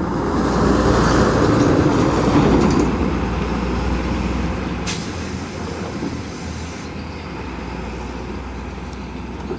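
Hino 500 diesel flatbed truck passing close, its engine and tyre noise loudest about one to three seconds in, then easing off to a steadier, lower rumble as it pulls away.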